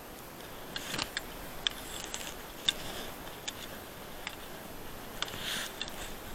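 Irregular sharp clicks and ticks with a short rustle about five and a half seconds in: handling noise from an action camera turned in a gloved hand.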